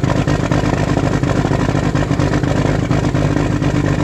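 A 2007 Mack truck's diesel engine running steadily and loudly just after a cold start, with a dense, rapid clatter.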